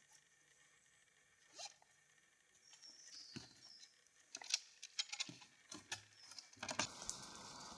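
Faint rustling with scattered small clicks and knocks from a backpack and a wooden field easel being handled, busier from about three seconds in. Near the end it gives way to a steady outdoor hiss.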